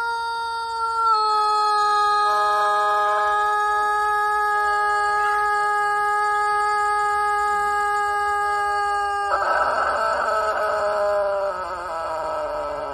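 Rooster crowing one very long, held crow at a steady pitch for about nine seconds, which then turns rough, slides down in pitch and fades out near the end.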